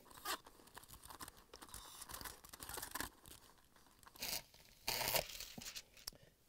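Plastic backing sheet being peeled off a clear adhesive film, crinkling and tearing in several short bursts, with a cloth towel rubbing the film down.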